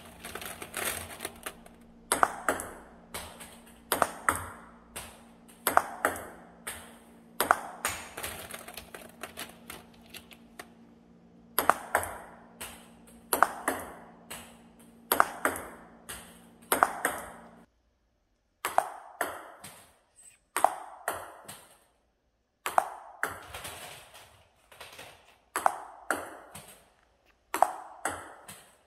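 Table tennis ball clicking off the table and a rubber-faced paddle during repeated backhand flick drills. A quick group of sharp clicks about every two seconds, with a low steady hum underneath until about two-thirds of the way through.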